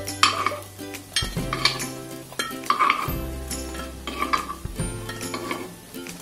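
A metal spoon clinking and scraping against the cups of an appe pan as small baked dough balls (baati) are scooped out one by one: a dozen or so irregular sharp clinks and knocks.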